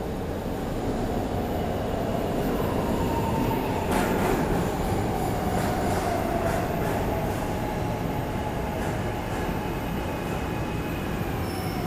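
A Market-Frankford Line subway train running in the station with a steady rumble. Its whine falls slowly in pitch, and a run of wheel clicks starts about four seconds in.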